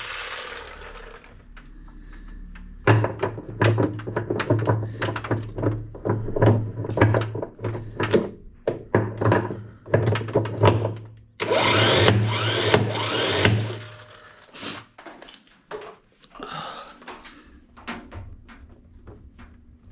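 An electric motor running in spurts, with a low hum, loud whirring bursts and many clattering knocks; it drops to scattered clicks near the end.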